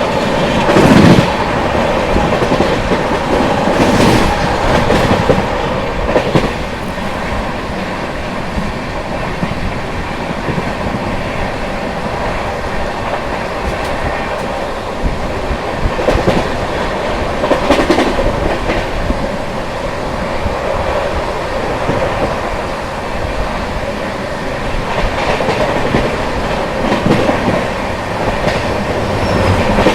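Express train running at about 130 km/h, its wheels making a steady loud rumble on the track. A few sharper clacks come at irregular intervals as the wheels cross rail joints and points.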